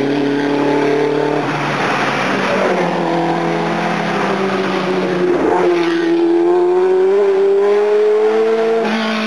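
Several classic racing engines running at once, with a short sweep in pitch about five and a half seconds in. One engine then accelerates with a steadily rising pitch over the last few seconds.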